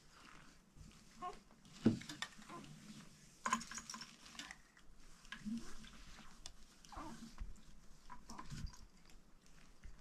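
Scattered light knocks and cloth rustling as a baby is strapped into a wooden cradle, with a few brief, faint vocal sounds.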